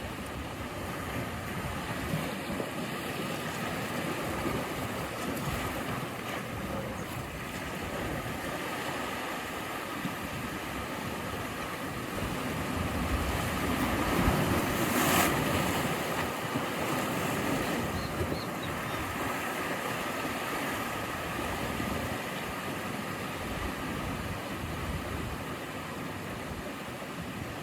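Ocean surf: a steady wash of waves on the shore, with one wave swelling louder about halfway through and then easing off.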